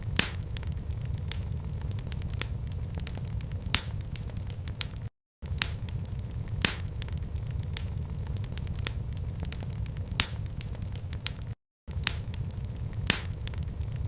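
Wood fire crackling in a fireplace: a steady low rumble of flames with irregular sharp pops and snaps. The sound cuts out completely for a moment twice, about five and eleven and a half seconds in.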